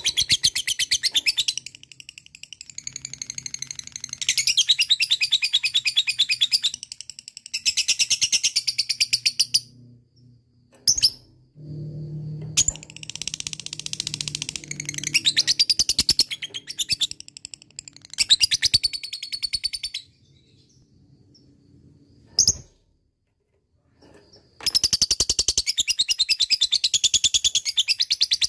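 Lovebird singing 'ngekek', the long chattering song. Runs of very rapid, high-pitched repeated notes last several seconds each with only short breaks between them, and after a lull of a few seconds near the end a final long run starts.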